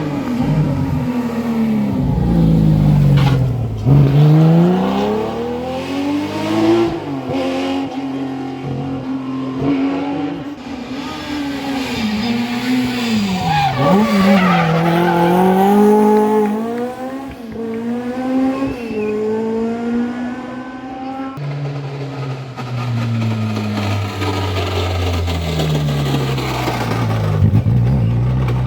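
Historic rally car engines revving hard, the pitch climbing and dropping through gear changes and braking as the cars are driven flat out on a stage. About two-thirds of the way through, the sound switches abruptly to a different, lower-pitched engine.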